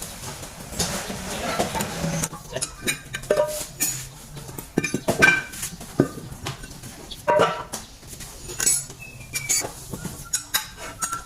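Metal tools and brake parts clinking and clanking irregularly during a brake rotor disc replacement, some knocks leaving a short metallic ring.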